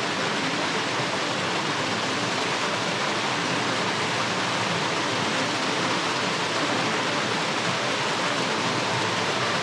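Creek water rushing steadily over a small waterfall into a splash pool.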